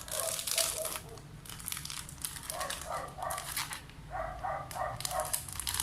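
Plastic packaging crinkling and rustling as it is handled, with three bursts of short high-pitched yelps, three or four in quick succession each.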